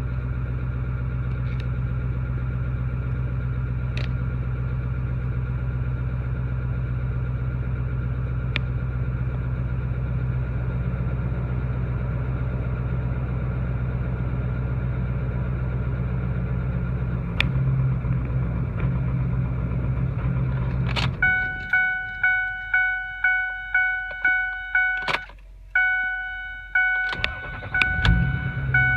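Ford 6.4 Powerstroke diesel idling with the intermittent miss and surge the owner is chasing (cylinder 3 contribution and misfire codes). About three quarters of the way through, the engine is shut off and a dashboard warning chime dings about twice a second. The engine is cranked and restarts near the end, the usual way this truck returns to a smooth idle.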